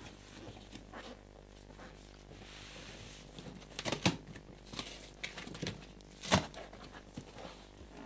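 Cardboard box being opened by hand: the top flaps rustle and are bent back, with scattered knocks and two louder sharp knocks a couple of seconds apart in the second half.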